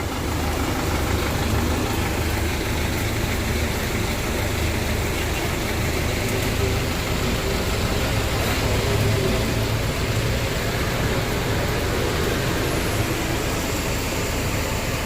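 Bus engine idling steadily, heard from inside the cabin, with a steady hiss of heavy rain over it.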